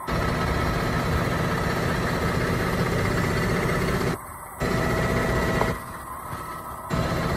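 Valtra T174 tractor's six-cylinder diesel engine idling steadily, heard close at the rear of the tractor. The level drops abruptly twice, about four and six seconds in.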